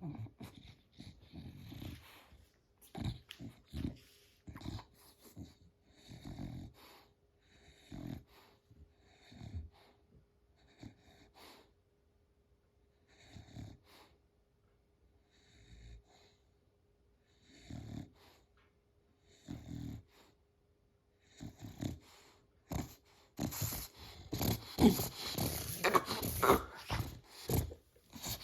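American bully dog reverse sneezing: a long run of sharp, noisy pulls of air through the nose, about one a second, with a few short pauses. The bouts grow denser and louder near the end. This is a harmless airway spasm common in dogs that can look like a seizure but is not one.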